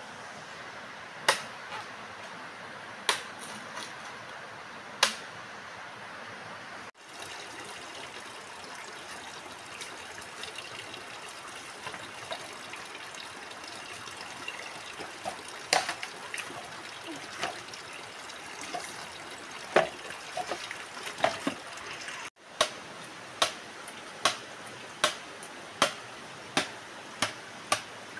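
Steady rushing of a stream under scattered knocks and steps through brush. In the last few seconds, a run of sharp, evenly spaced strikes, about three every two seconds: a machete chopping into a green bamboo stalk.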